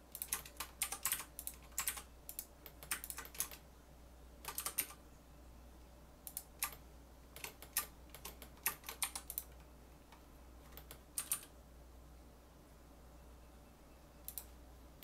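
Computer keyboard keys clicking in quick bursts of keystrokes for about eleven seconds, then a few more near the end. A room fan hums steadily underneath.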